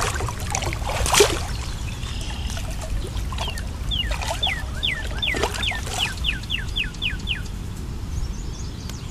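Water splashing and sloshing as a large catfish is handled in shallow water, with the loudest splash about a second in. In the middle a bird calls a quick run of about a dozen falling notes, about three a second.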